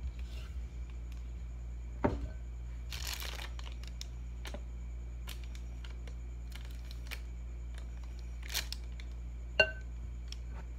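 Spatula working macaron batter out of a glass bowl into a plastic piping bag: the plastic bag crinkles, with short scraping swishes and two sharp knocks of utensil against glass, the second one ringing briefly like glass. A steady low hum runs underneath.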